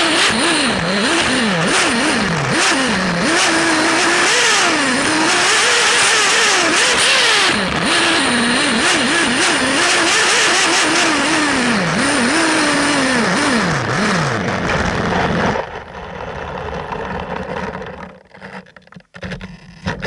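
Kyosho Inferno MP9 1/8-scale buggy's OS nitro glow engine running hard, revving up and down over and over as it is driven. About three-quarters of the way through, the engine cuts out abruptly: it stalls. After that only quieter, uneven noise remains.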